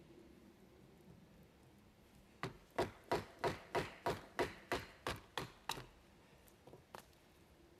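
A wooden baton strikes the spine of a bushcraft knife driven into a short log, splitting the wood. About eleven sharp knocks come at roughly three a second, followed by two lighter ones.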